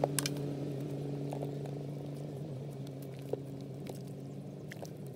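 A motor engine hums steadily, fading slowly and cutting out near the end, with a few light knocks on top.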